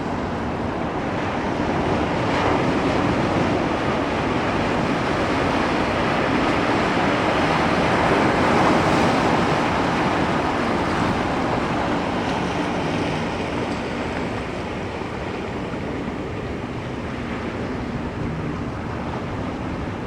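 Ocean waves washing on a shore: a continuous roar of surf that swells to a peak about halfway through and eases off afterward, with some wind on the microphone.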